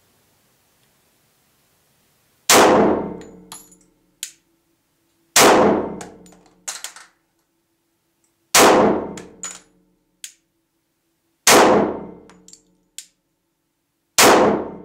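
Five single shots from a compensated Glock 24C pistol in .40 S&W, fired slowly about three seconds apart, each dying away over about a second. A short clink follows each shot.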